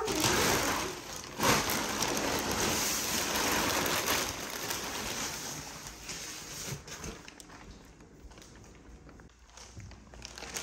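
Plastic wrapping from an unpacked mattress being gathered up by hand, crinkling and rustling; it thins out and quietens over the last few seconds.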